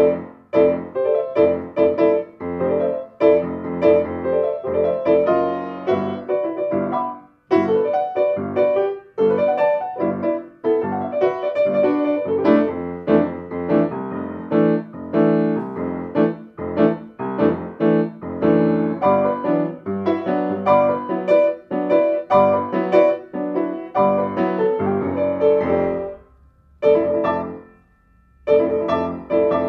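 Steinway Model M grand piano playing a piece of many quick notes and chords, driven by its QRS PNOmation player system, with a few short pauses, two of them near the end.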